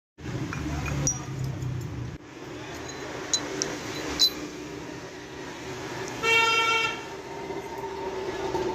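Vehicle horn honking once for under a second, a little past the middle, over street background noise, with a few sharp clicks before it.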